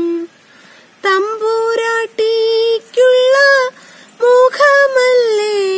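A woman singing lines of a Malayalam poem in a slow, melodic chant, holding long notes that waver in pitch, in three or four phrases with brief pauses between them.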